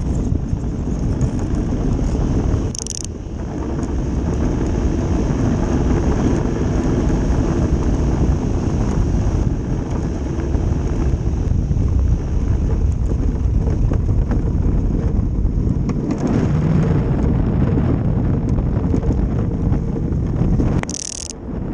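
Ice boat running at speed: its runners rumble and scrape over the lake ice, mixed with wind buffeting the boat-mounted microphone. The rumble drops away briefly twice, about three seconds in and near the end.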